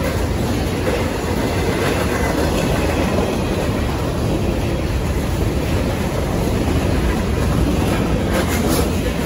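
Freight cars of a passing train rolling by: a steady rumble of steel wheels on the rails, with a few sharper clicks near the end.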